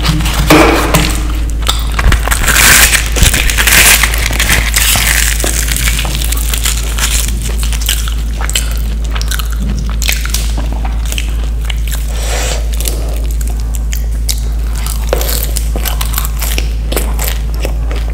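Close-miked eating sounds: biting and chewing food with crunches, crackles and wet mouth clicks, loudest and densest about two to five seconds in, then sparser chewing clicks. A steady low hum runs underneath.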